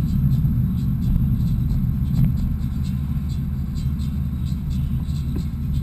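BMW E46 driving on a town road, heard from inside the cabin: a steady low rumble of engine and tyres.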